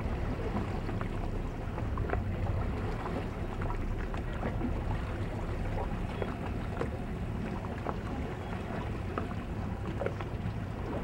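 Steady wind rumble on the microphone, with small irregular splashes of water lapping against a boat.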